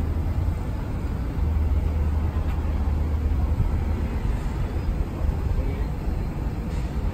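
Steady low rumble of city road traffic, cars and buses running on a busy multi-lane road.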